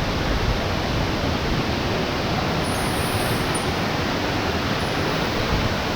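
Waterfall close by, its falling water rushing steadily without a break.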